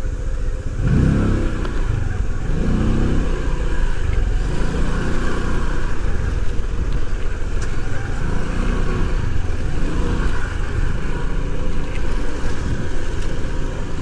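Motorbike riding along, its engine and road noise mixed with wind rumbling on the microphone that swells and fades every second or two.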